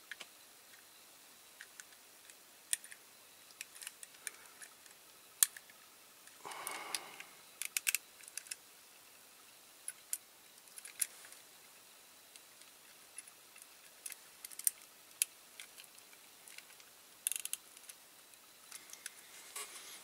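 Scattered light clicks and taps of a die-cast toy car's body and baseplate being handled and pressed together, the base not seating fully home on the body.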